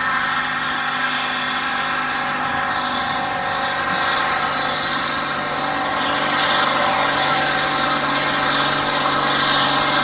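Massey Ferguson 265 tractor's diesel engine running hard under steady load while pulling a weight-transfer sled, getting a little louder about six seconds in.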